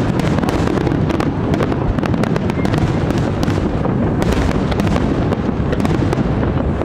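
Large fireworks display going off continuously: a dense crackle of many sharp cracks over a steady low rumble of bursts.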